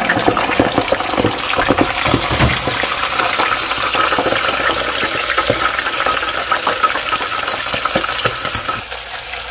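Whole raw prawns deep-frying in hot oil in a fryer basket, just lowered in: a dense crackling sizzle. It eases slightly near the end.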